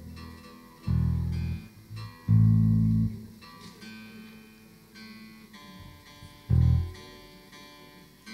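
Electric bass and guitars being tuned and checked on stage: scattered plucked guitar notes, with three loud, held low bass notes, about a second in, around two and a half seconds in, and after six seconds.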